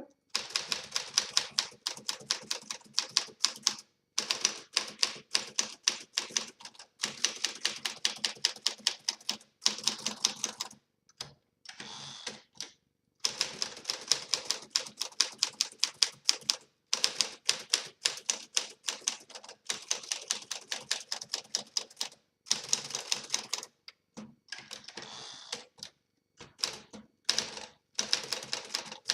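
1955 Smith Corona Silent Super manual portable typewriter being typed on, its typebars striking a freshly re-rubbered platen in quick runs of keystrokes, with brief pauses between runs.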